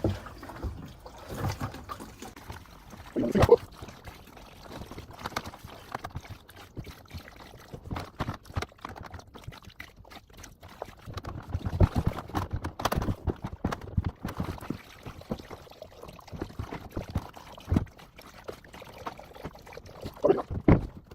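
Water pouring and sloshing as an old cold water storage tank is emptied into buckets, with scattered knocks and clatter.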